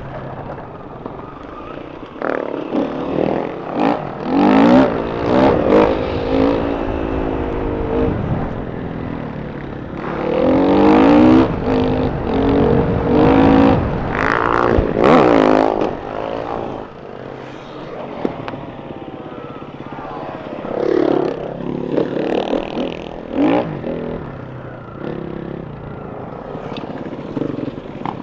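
Enduro motorcycle engine revving in repeated bursts, its pitch rising and falling with the throttle, easing off between bursts; the loudest stretch is about ten to sixteen seconds in.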